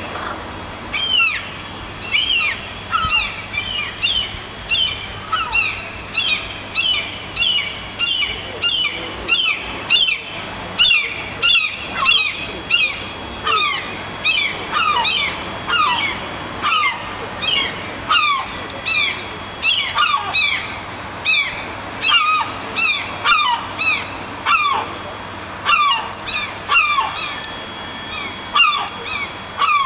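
Gulls calling in a long unbroken series of sharp, falling cries, about one to two a second.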